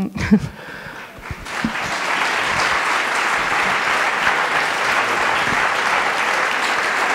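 Audience applauding: the clapping swells in about a second and a half in and then holds steady.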